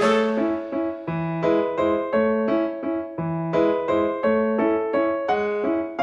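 Background piano music: a light tune of struck notes over a moving bass line.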